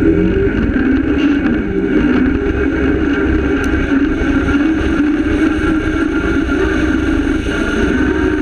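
Rally car's engine running hard at speed on a gravel dirt track, with a continuous rumble of tyres and road noise; the revs dip and climb back about a second in, then hold steady.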